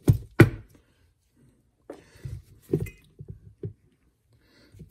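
A metal fuel-injection rail assembly knocking on a workbench as it is handled: two sharp knocks at the start, then a few softer bumps and clatters about two to four seconds in.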